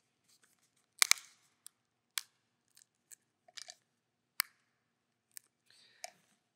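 A large altar-bread host being snapped into pieces over a metal paten: a sharp double crack about a second in, then single small snaps and clicks roughly once a second.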